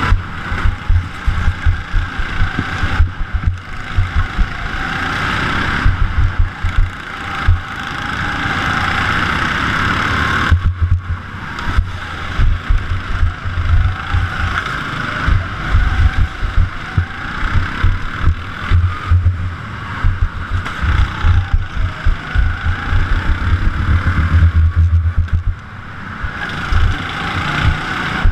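Onboard sound of a rental go-kart's engine at race pace, its note rising and falling in pitch as the kart slows for and accelerates out of corners, with heavy low rumbling and thumping on the camera mount. The engine drops briefly about ten seconds in, then picks up again.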